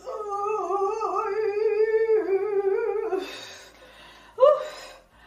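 A woman's frightened whimpering hum: one long held nasal whine that wavers up and down in pitch and sinks away about three seconds in, followed by a breathy exhale and a short falling 'oh' near the end.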